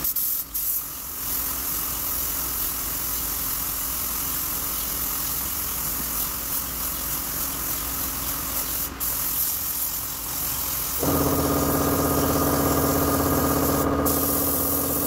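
Pneumatic spray gun hissing steadily as paint is sprayed onto a bus body panel, briefly stopping twice when the trigger is released. About eleven seconds in, a steady machine hum starts and continues under the hiss.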